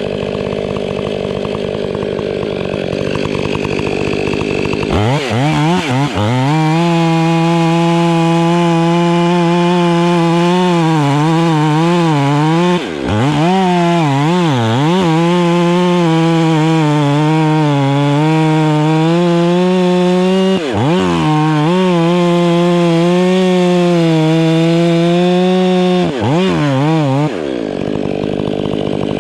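Two-stroke chainsaw revved to full throttle about five seconds in and held at high speed while cutting wood, its pitch dipping briefly a few times under load, then let off near the end. A steadier engine hum runs before and after the high-speed stretch.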